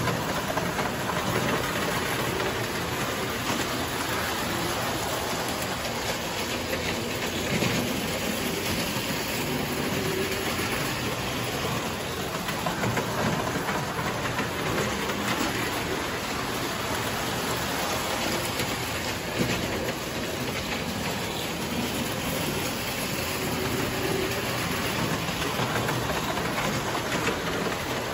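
Toy train running on metal track, a steady running noise with no pauses.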